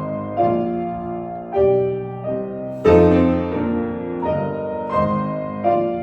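Solo piano playing classical music: full chords struck about once or twice a second and left to ring, the loudest about halfway through.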